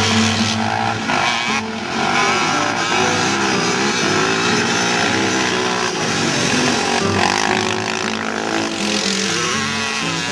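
Quad ATV and dirt bike engines revving, their pitch rising and falling as they ride.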